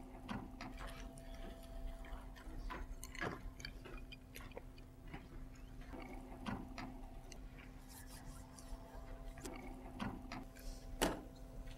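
Quiet room tone: a steady faint hum with scattered faint clicks and rustles, and one louder click near the end.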